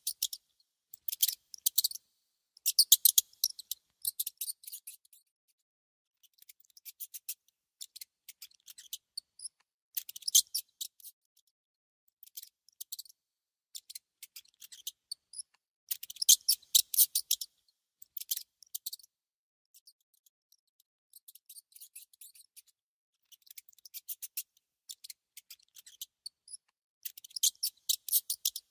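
A mouse gnawing and chewing on food: bursts of rapid, dry, crisp clicks, each lasting about a second, coming every second or two with short pauses between. The loudest bursts fall about three seconds in and again around sixteen to seventeen seconds in.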